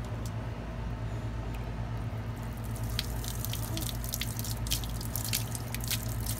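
Water from a running garden hose splashing and dripping onto a wet concrete patio. The sharp splashes come thick and irregular from a couple of seconds in, over a steady low hum.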